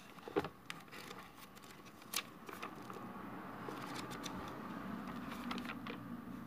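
Pages of a book being turned and fanned by hand: a few sharp paper flicks in the first couple of seconds, then a steady rustle of pages riffling past.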